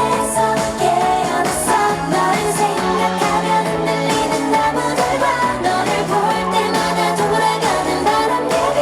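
K-pop girl-group song played loud, with female singing over a steady beat.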